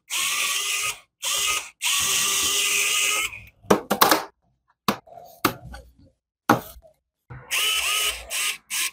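A small handheld power tool motor, such as an electric screwdriver, runs in short bursts of a second or so with a steady whine. Between the bursts there are a few clicks and knocks from handling.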